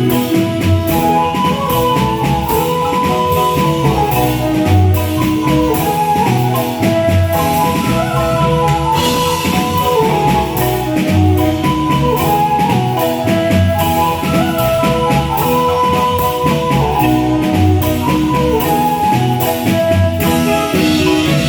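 A marimba band playing a fast piece: quick, repeated mallet notes on the wooden marimba over a steady, pulsing bass line.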